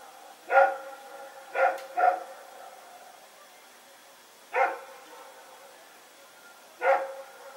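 A dog barking: five single barks at uneven intervals, two of them close together about two seconds in, each followed by a brief ringing echo.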